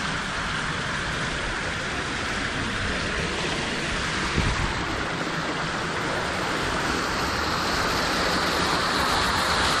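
Creek water rushing steadily, growing a little louder near the end, with one brief low thump about four and a half seconds in.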